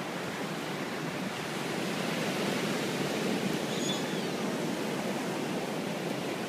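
Ocean surf washing onto the beach: a steady rushing noise that swells slightly in the middle.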